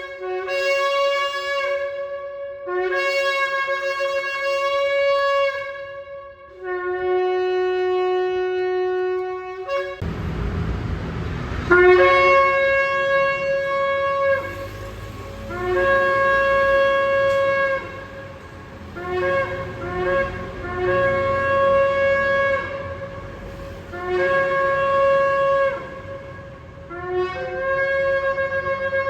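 Shofar blown in a series of blasts, most starting on a low note and jumping up to a higher held note, with one long blast held on the low note and a few short broken blasts in the second half. About ten seconds in, a steady background hiss comes in under the blasts.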